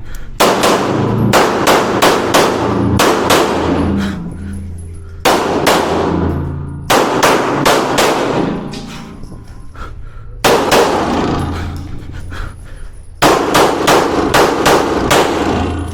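Beretta 92 9mm pistol fired in quick strings of shots, about five strings with short pauses between them, as a stage is shot, each shot ringing in an indoor range.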